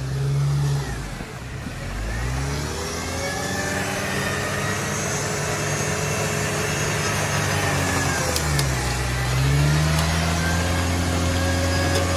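1996 Jeep Wrangler's four-cylinder engine revving hard as it drives through mud and water, with the tyres splashing. The revs climb about two seconds in, hold high, drop briefly near eight seconds, then climb again.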